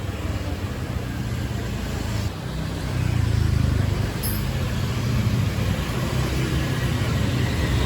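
A motor vehicle engine running: a steady low rumble that grows louder about three seconds in.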